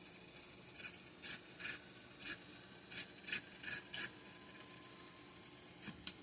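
Small RC servos, two wired together on a Y connector, buzzing in short raspy bursts as they are driven back and forth. There are about eight quick bursts in the first four seconds and two more near the end.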